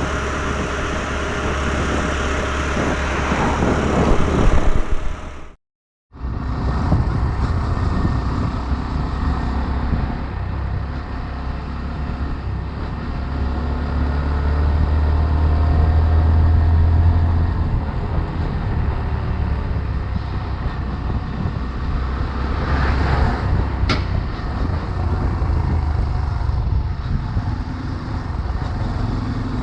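Small 125 cc motorcycle underway: steady engine and road noise, broken by a moment of silence about six seconds in.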